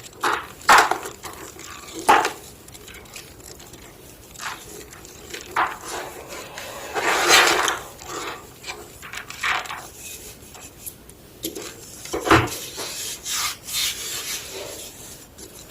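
Block of homemade gym chalk being crushed: a series of irregular dry crunches and crumbling rasps, with a long grinding crunch about halfway and a sharp crack near the end.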